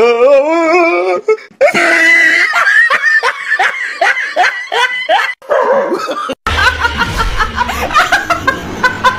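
Hearty human laughter in long runs of quick repeated bursts. After a brief break about six and a half seconds in, it goes on as a woman's laughter.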